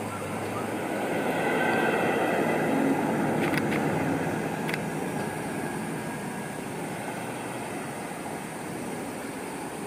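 Kintetsu 1010 series electric train pulling into the station and slowing to a stop: wheels rolling on the rails with a few high whining tones, loudest about two to three seconds in, then dying away as it comes to rest. There are two sharp clicks about three and a half seconds in and another just under five seconds in.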